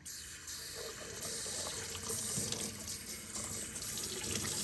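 Tap water running, turned on suddenly at the start, fed through a dishwasher silverware rack's spray holes to test them after cleaning; some of the holes are still blocked.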